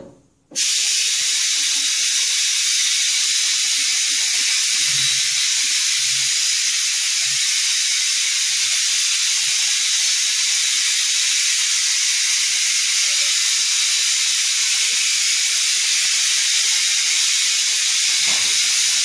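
Loud, steady hiss with no rhythm or change in pitch, starting suddenly about half a second in and holding at an even level, with a few faint low knocks underneath.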